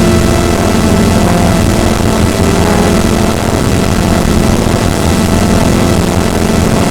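Experimental software synthesizer putting out a steady, loud, engine-like rumbling drone with a hissing noise over it and a few faint held tones.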